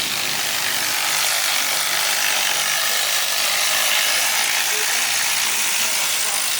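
Ratchet wrench being worked continuously, a steady dense clicking.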